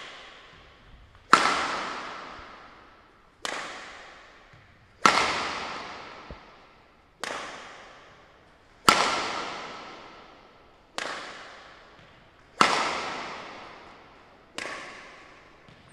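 Badminton rackets hitting a shuttlecock back and forth between two players: eight hard, sharp hits about two seconds apart, alternating louder and softer. Each rings out with a long echo in a large sports hall.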